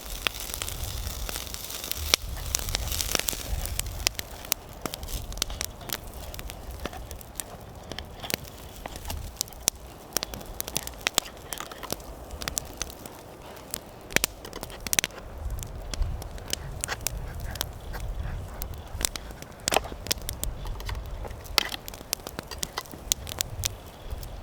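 Campfire crackling, with sharp, irregular pops of burning wood.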